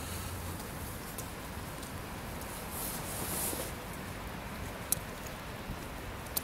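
Steady city rain with scattered sharp ticks of single drops, the loudest about five seconds in, and a brief swell of hiss about three seconds in.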